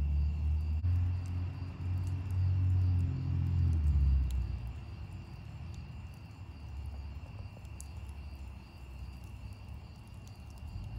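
Wood fire burning with scattered small crackles, over crickets chirping steadily. A low rumble is the loudest sound, strongest in the first four seconds and fading after.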